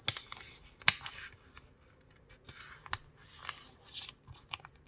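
A sheet of paper being folded and creased by hand: irregular rustles and short, sharp crinkling clicks as the fold is made and pressed down. The sharpest click comes about a second in.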